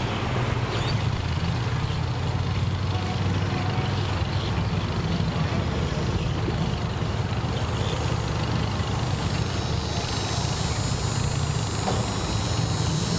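An engine idling steadily, a continuous low rumble. A high, steady hiss joins it about eight seconds in.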